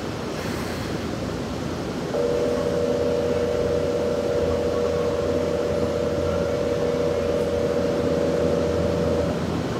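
Platform departure buzzer sounding a steady two-tone electronic signal for about seven seconds, starting about two seconds in and cutting off near the end, over the hum of the station and the waiting train.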